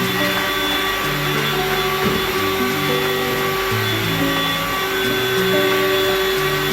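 Oraimo 3-in-1 cordless handheld vacuum cleaner running steadily, an even motor and airflow hiss, with background music of changing notes over it.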